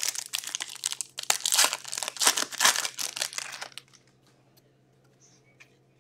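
Crinkly wrapper of a hockey card pack being torn and crumpled, a dense crackling for nearly four seconds that then stops.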